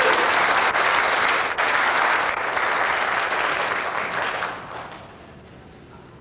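Congregation applauding, dying away about four and a half seconds in.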